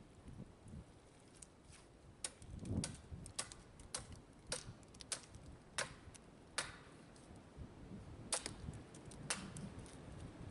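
Axe blade hewing a green red oak log down to shape, heard as a series of sharp, irregular knocks about one or two a second, starting about two seconds in.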